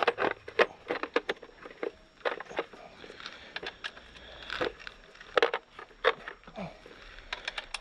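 Tool bits and a bit-set case being handled: irregular clicks and light clatters as a hex bit is picked out.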